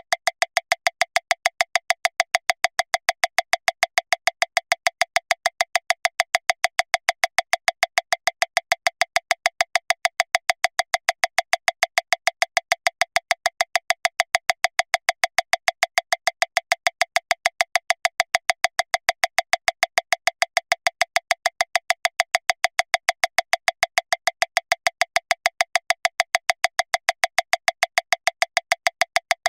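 Metronome clicking steadily at 405 beats per minute, about seven even, identical clicks a second, one every 0.148 s.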